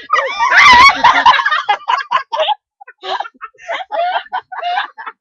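Several girls laughing hard: a loud, high, squealing laugh in the first second, then short choppy bursts of laughter.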